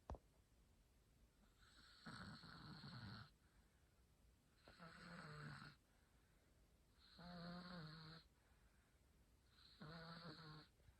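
Slow, regular snoring: four drawn-out snores about two and a half seconds apart, some with a buzzing, pitched rattle. A single sharp click comes right at the start.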